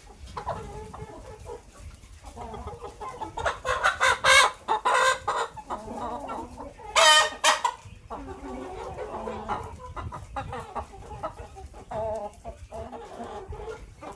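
A flock of chickens clucking and calling together, with louder, higher calls rising out of the flock about four seconds in and a single loud call around seven seconds.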